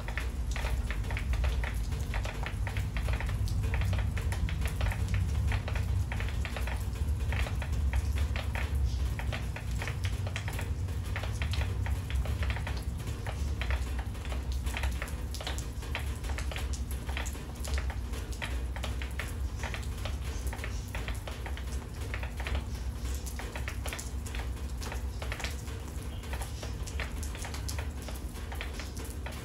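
Rain falling steadily, with dense, irregular patters and drips of water coming off a roof edge, over a low rumble.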